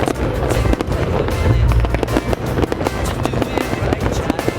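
Fireworks display going off in rapid cracks and bangs over loud music with a heavy bass.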